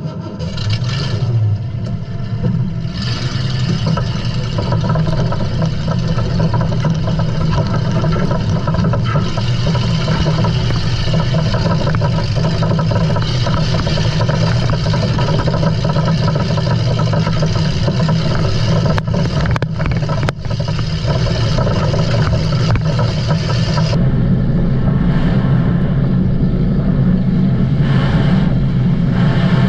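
Vehicle engines running loud and steady, with brief dips about two-thirds of the way through.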